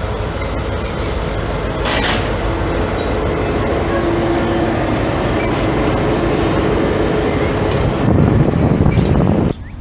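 A freight train of open wagons rolling past with steady wheel-on-rail noise. At its tail a DB class 294 diesel-hydraulic shunting locomotive passes with its engine running. The sound cuts off suddenly near the end.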